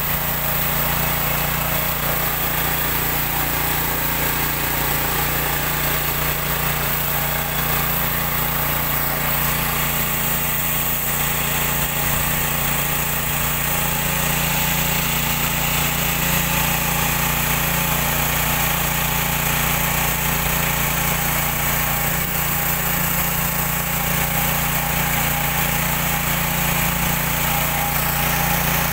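Small single-cylinder petrol engine running steadily at constant speed, driving a rice thresher as paddy stalks are fed into its drum.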